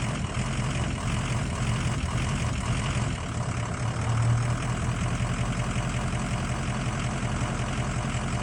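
Ford 6.0 L Power Stroke V8 turbo-diesel running cold, held just off idle with the accelerator barely touched: a steady, fast diesel pulse with a strong low hum that swells slightly about four seconds in. The cold rough idle has no known cause.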